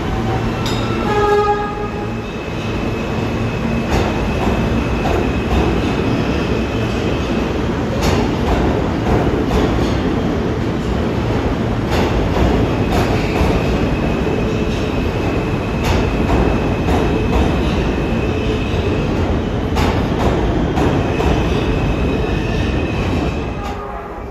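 New York City subway train running slowly through the station: a steady rumble and wheel noise, with a sharp clunk about every four seconds as wheels cross a rail joint. A high steady wheel tone comes and goes.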